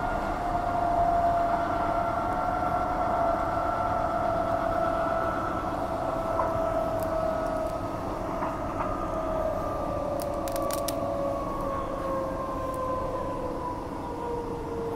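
Transperth A-series electric multiple unit heard from inside the carriage: the motor whine falls steadily in pitch as the train slows, over the rumble of the wheels on the track. A few sharp clicks come about ten seconds in.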